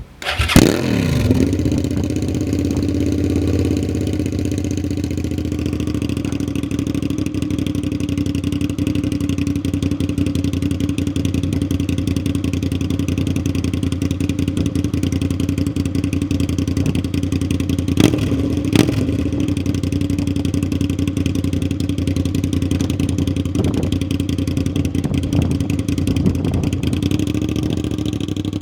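Suzuki SV650S's V-twin engine starting up with a brief blip of revs, then idling steadily. There are two short clicks about two-thirds of the way through.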